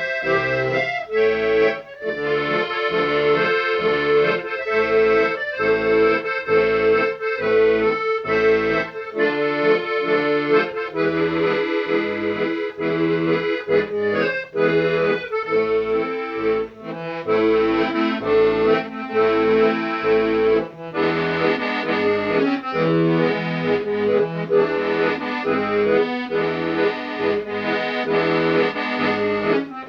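Instrumental music: held melody notes over a steady, regularly pulsing bass accompaniment.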